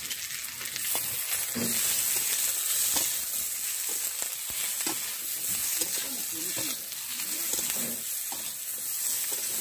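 Potatoes and freshly added ground spices sizzling in hot mustard oil in a kadai, a steady frying hiss, with a spatula stirring and knocking against the pan now and then.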